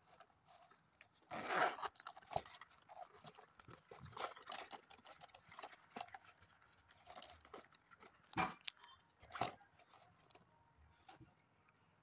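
Handling noises of a cork-leather bag being turned over, unzipped and opened: scattered rubbing, rustling and light clicks of its metal clips and zipper. There is a longer scraping stretch about a second and a half in and two sharp clicks about eight and nine seconds in.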